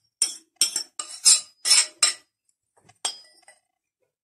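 Metal kitchen utensil scraping and clinking against mixing bowls while cake batter ingredients are being combined: about six quick strokes, then one more about three seconds in.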